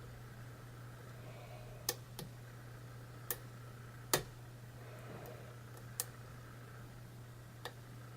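Sharp, irregular clicks of a hook pick and tension wrench working the pins of a challenge lock, six in about eight seconds, over a steady low hum.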